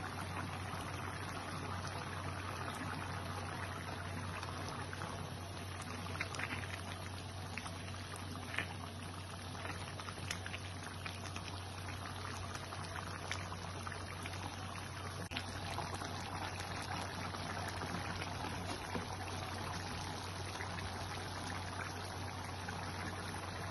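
Thick tomato-based stew boiling in a pan: a steady bubbling with small pops of bursting bubbles, over a low steady hum.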